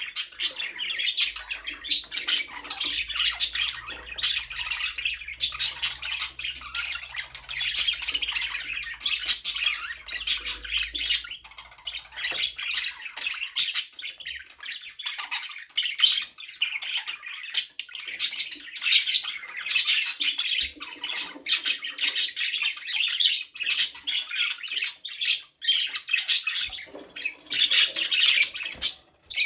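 Budgerigars chirping and squawking in a busy, continuous stream of rapid calls.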